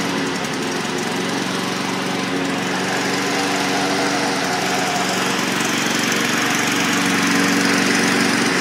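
Small petrol engine of a brush cutter running steadily just after being started.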